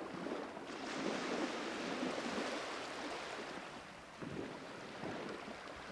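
Small sea waves lapping and splashing in irregular little slaps, over a steady hiss of wind on the microphone.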